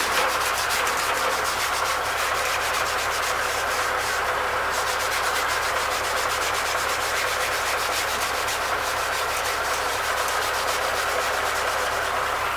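A brass-bristled wire brush scrubbing back and forth over a perforated sheet-metal radiator guard, scraping dirt out of the holes. The strokes come fast and continuous, with a brief pause about four seconds in.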